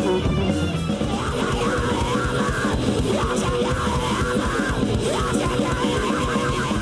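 Rock band playing heavy rock, with distorted electric guitar and bass over fast, dense drumming.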